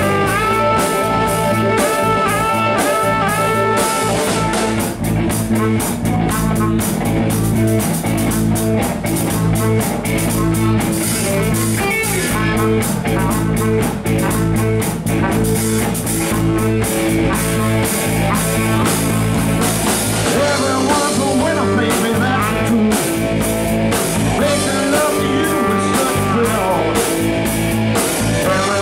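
Live rock band playing with a steady drum beat: Les Paul-style electric guitar, bass guitar, drum kit and saxophone.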